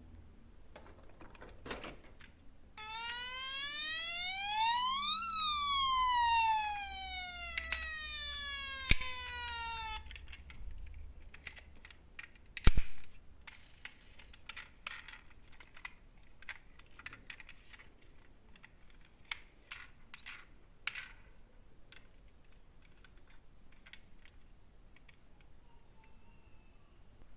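A toy emergency vehicle's electronic siren gives one long wail, rising for about two seconds and then falling slowly for about five, a few seconds in. After it, plastic toy cars clatter with scattered light clicks and knocks, the loudest a single sharp knock about halfway.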